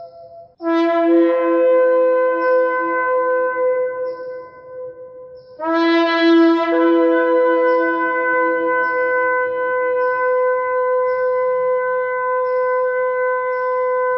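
Ram's-horn shofar blown in two long blasts. Each starts on a low note and steps up to a higher note that is held; the first fades after about four seconds, and the second, starting about halfway through, is held for about eight seconds.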